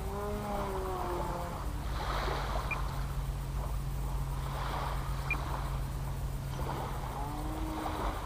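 Propeller aircraft flying overhead, its engine giving a steady drone, with wind rumbling on the microphone.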